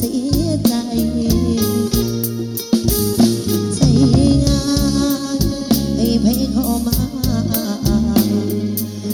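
Live Thai luk thung band playing an instrumental passage: a steady drum-kit beat under bass and a bending lead melody line.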